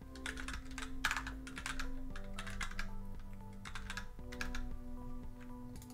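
Typing on a computer keyboard: an irregular run of key clicks as a command is entered, over soft background music with held notes.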